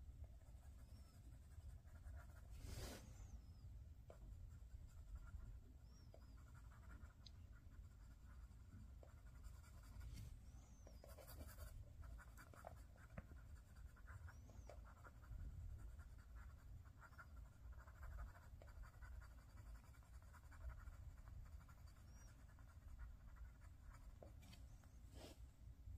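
Pencil scratching faintly on paper in short, irregular shading strokes, with a few sharp clicks, the loudest about three seconds in and near the end.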